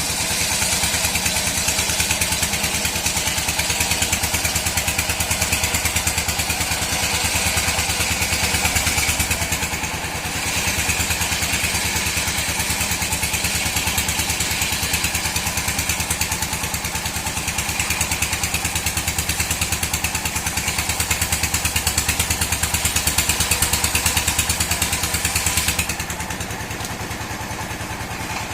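Old sawmill running and cutting dry mahogany: a steady, rapid engine pulse under a loud hiss of the saw in the wood. The hiss dips briefly partway through and falls away sharply near the end, leaving the machine running on its own.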